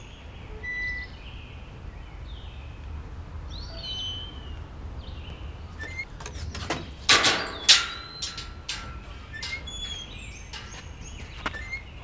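Birds chirping and whistling in short calls, with a few sharp metal clanks and rattles of a wrought-iron gate about seven seconds in, the loudest of which leaves a brief ringing tone.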